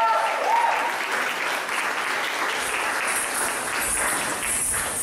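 Audience applause, an even clapping that runs on after the last notes of the dance music die away about a second in.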